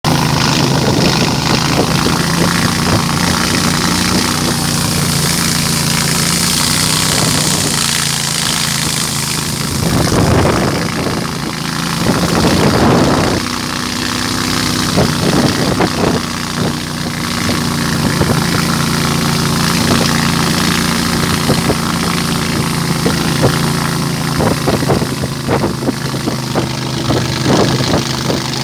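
A small boat's engine running steadily while under way, over a steady hiss of wind and rushing water.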